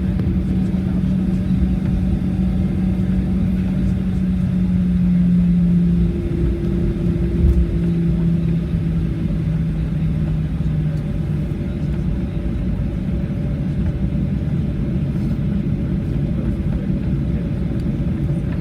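Cabin noise inside a Boeing 737-800 on the ground after landing: a steady low rumble under a hum that drops in pitch about six seconds in and fades out about eleven seconds in.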